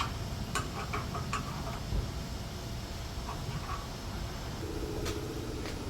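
A few light metal clicks and clinks from hand tools and exhaust clamp hardware being fitted, over a steady low rumble. A little before the end a low pulsing buzz sets in.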